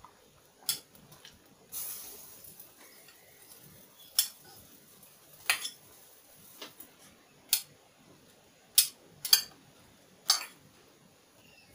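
A metal spoon clinking and scraping against a ceramic bowl as pieces of fruit are pushed out into a pot of syrup. About eight sharp separate clinks come at uneven intervals, with a short hiss about two seconds in.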